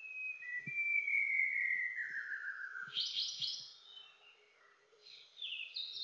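White-browed shama singing: a long whistled note sliding down in pitch, then a quick burst of high, rapid notes about halfway, and more high notes near the end.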